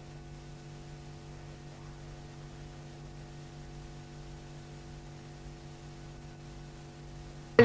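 Steady electrical mains hum with a faint hiss, and one sharp click at the very end.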